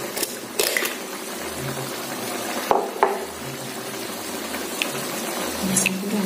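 Potato stew in a steel wok boiling on a gas stove, a steady bubbling hiss with a few short sharp clicks.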